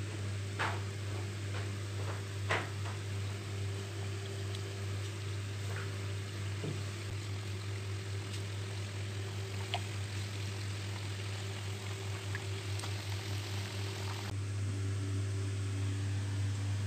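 Khaja pastries deep-frying in hot oil in a kadhai: a steady sizzle of bubbling oil over a steady low hum, with a couple of sharp knocks in the first three seconds. The sizzle stops suddenly about three seconds before the end, leaving the hum.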